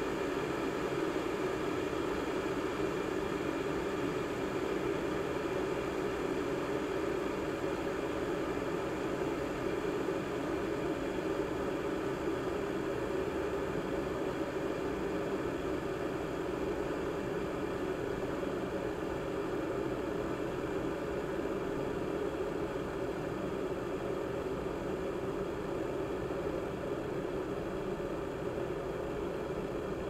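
Electric water heater boiling water: a steady rumbling hiss.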